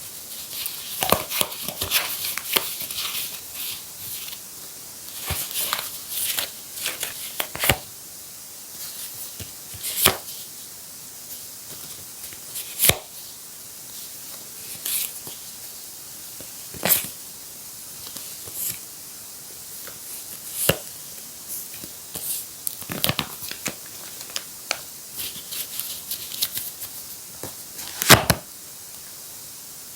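Hands handling paper toys: paper rustling and crinkling, with scattered sharp taps and clicks over a steady hiss.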